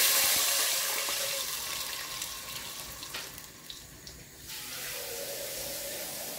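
Water poured from a jug into hot oil and whole spices in an aluminium pot, setting off a loud hiss and sizzle. The hiss fades over the first few seconds and settles to a quieter steady hiss once the pouring stops.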